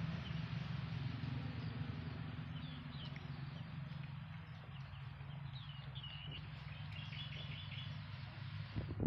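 Outdoor ambience: small birds chirping now and then, with a quick run of about five chirps near the end, over a steady low hum and hiss.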